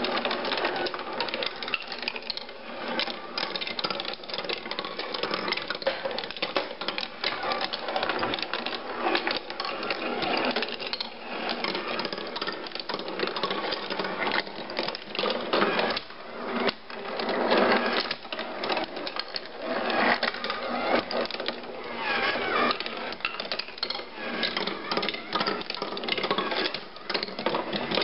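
Wooden marble machine running: marbles rolling and clattering along wooden tracks, with a steady stream of rapid hard clicks and rattles from the balls and mechanism.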